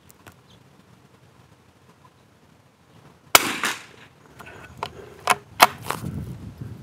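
A single .22 long rifle shot from a CZ Brno Model 4 bolt-action rifle about halfway in: a sharp crack with a short echo. About a second later come four quick metallic clicks as the bolt is worked to eject the case and chamber the next round.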